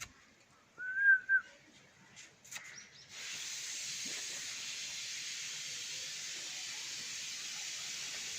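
A parrot gives one short whistle that rises and falls in pitch, about a second in. From about three seconds in a steady hiss sets in and holds.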